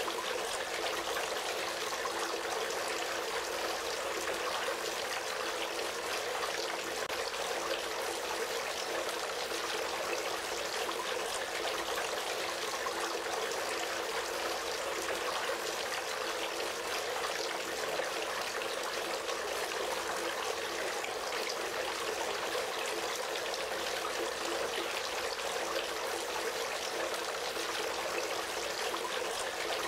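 Water trickling and splashing steadily as it falls from the bowl rims of a three-tier garden fountain into the tiers below.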